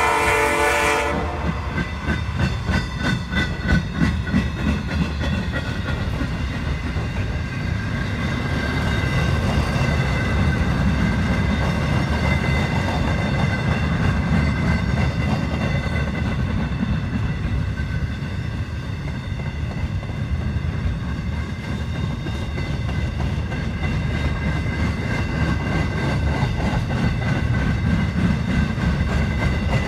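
A locomotive air horn cuts off about a second in. Then a manifest freight train's cars roll past close by: a steady low rumble with rhythmic wheel clatter over the rail joints and a faint high ringing above it.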